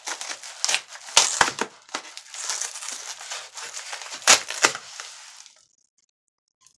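Yellow padded paper mailer envelope being torn open by hand: continuous crinkling and crackling of the paper, broken by several sharp ripping pulls, then it stops near the end.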